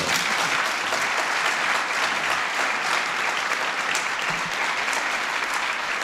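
Audience applauding, a dense, steady clapping.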